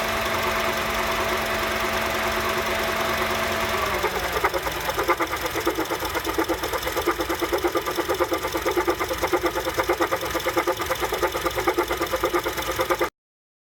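2007 Honda CR-V engine idling. For about four seconds there is a steady hum, which then winds down in pitch, and a rhythmic clunking of about three beats a second sets in. This is the clunk the car makes at idle only with the AC off, and it goes away when the AC turns on.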